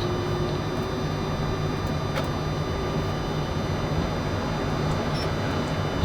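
Steady flight-deck noise of a Boeing 747-400 on the ground: a constant low hum from the engines at idle and the air conditioning, with faint steady electrical whines above it. There is a light click about two seconds in.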